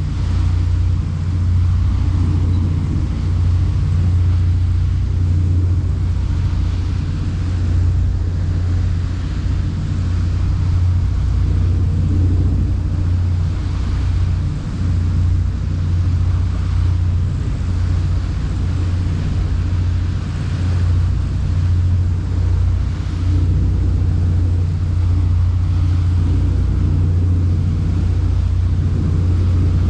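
Boat's engine running at a steady cruising speed: a loud, unbroken low drone.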